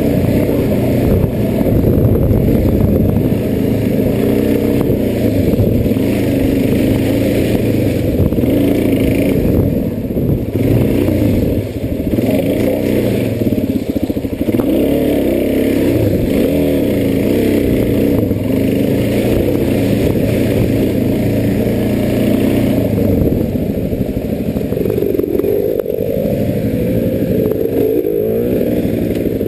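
Off-road enduro dirt bike engine being ridden hard, its revs rising and falling with the throttle.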